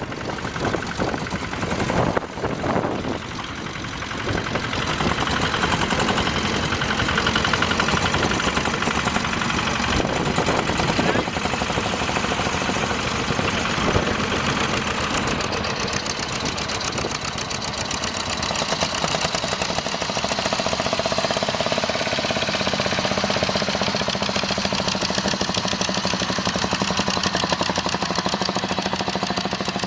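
Tractor engine running steadily, with a fast, even beat of firing strokes.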